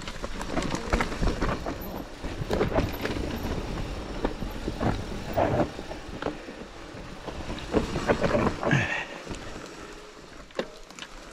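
Mountain bike running downhill over a rough, rocky trail: tyres rolling and crunching, with constant knocks and rattles from the bike, over a low rumble.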